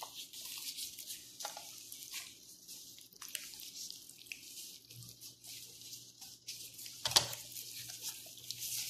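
Soft wet squishing and rubbing of plastic-gloved hands working marinade over and inside a raw whole chicken, a run of small irregular smacks with a sharper one about seven seconds in.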